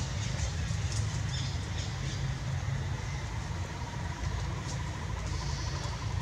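Outdoor ambience: a steady low rumble with scattered short, high chirps, and a faint rapid trill joining in the second half.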